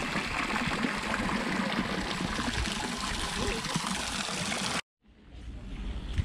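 Water from a statue fountain's spout splashing steadily into its stone basin. It cuts off suddenly nearly five seconds in, and a low rumble of wind on the microphone takes over.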